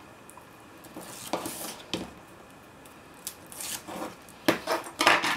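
Paper crafting handling sounds: the backing strip being peeled off double-sided tape with tweezers and designer paper being handled and rustled, with a few sharp taps of the tool and card on the table. The loudest tap and rustle come near the end.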